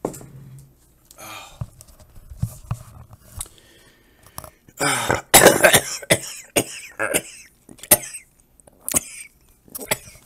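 A man with a head cold coughing and clearing his throat in a run of bursts, the longest and loudest about halfway through.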